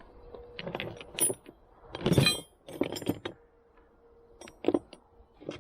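Metal hand tools, sockets and wrenches, clinking and clattering as they are picked through and set down: a run of separate clinks and knocks, the loudest a sharp ringing clink about two seconds in, over a faint steady hum.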